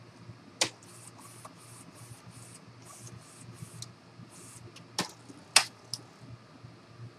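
Epson inkjet printer mechanism working: a run of short soft whirring pulses, about three a second, then a few sharp plastic clicks, the loudest about five and a half seconds in, as the print-head carriage moves across.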